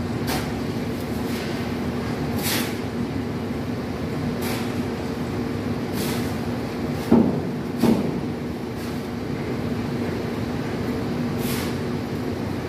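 Steel trowel scraping and slapping cement mortar in short strokes every second or two, over a steady machine hum. Two louder knocks come about seven and eight seconds in.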